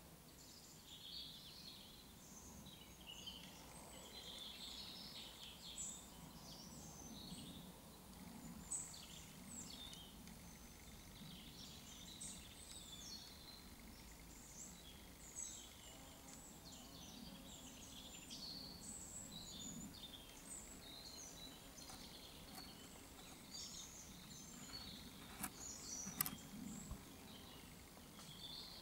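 Faint songbirds chirping and warbling, with many short high calls throughout. Two sharp clicks sound near the end.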